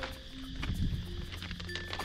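Background music: a slow melody of held notes, with scattered faint clicks underneath.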